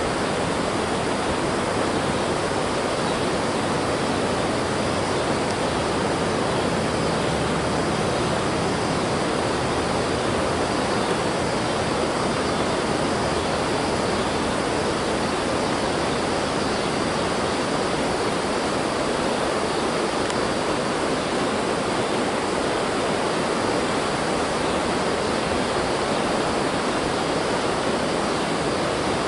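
A steady, even rushing hiss with no breaks or changes in level, with a faint low hum under it.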